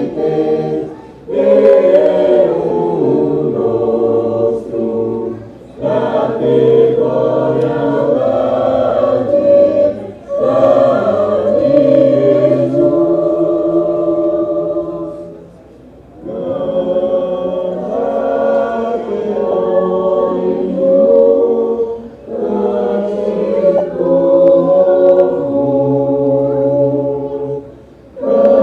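Choir singing in Portuguese in several voice parts at once, low and high. The phrases are separated by brief pauses, about every four to six seconds.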